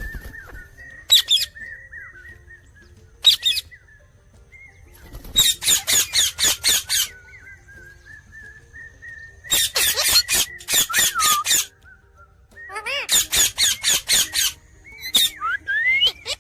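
Indian ringneck parrot calling: three runs of rapid, harsh repeated squawks, each of about six to eight calls, with a thin, wavering high-pitched chirping whistle between them.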